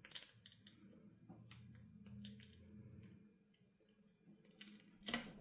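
Faint, irregular crackling and clicking of a glued e-paper phone case being pried apart with metal tweezers, with a louder crack near the end. The creaky sound is taken as a sign that the display's glass is already broken.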